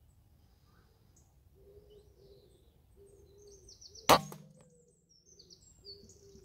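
A single shot from a Weihrauch HW100 PCP air rifle about four seconds in: one sharp crack followed by a brief low ringing hum. The pellet hits a grey squirrel, which drops. Small birds chirp and a low cooing call repeats in the background.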